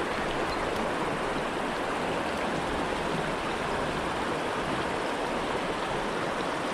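Steady rush of a shallow creek running over a rocky riffle.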